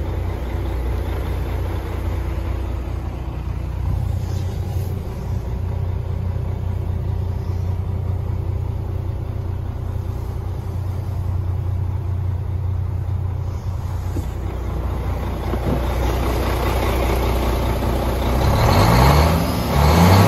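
MAN 26.510 tipper's diesel engine idling with a steady low hum. Near the end it grows louder, its pitch stepping up and back down as it is revved.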